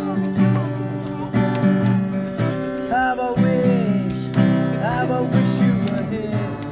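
Acoustic guitar being strummed, its chords changing every second or so.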